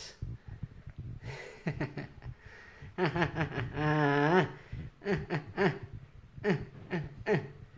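A man's voice making wordless playful sounds to a cat in several short bursts, with one longer, drawn-out sound about three seconds in.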